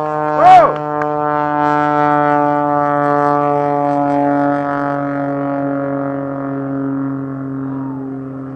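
Pitts Special aerobatic biplane's piston engine and propeller droning as it flies past low, with a quick rise and fall in pitch about half a second in, then a steady tone that slowly drops in pitch and fades.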